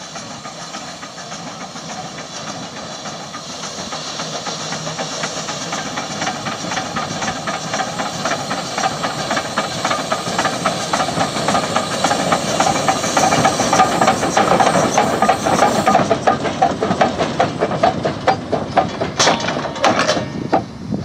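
Achenseebahn steam rack tank locomotive running toward the listener, with rapid exhaust chuffs and steam hiss growing steadily louder as it comes close. A few sharp clanks come near the end.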